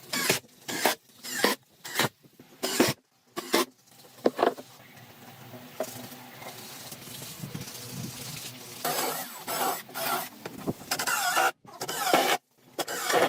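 Hand-tool strokes scraping on wood, about two a second at first, then a quieter steady stretch and a louder run of scraping near the end.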